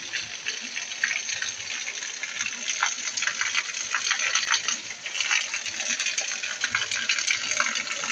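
Heavy rain falling on a paved lane between walls: a steady hiss full of small drop patters. Rainwater also gushes from a drain pipe in the wall.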